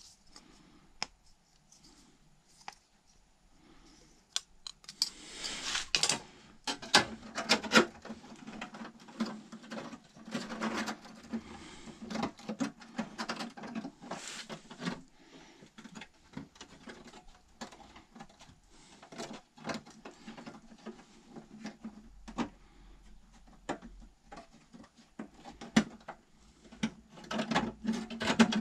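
Irregular scraping, rubbing and clicking of hand tools on bodywork, starting about four seconds in and carrying on in uneven bursts.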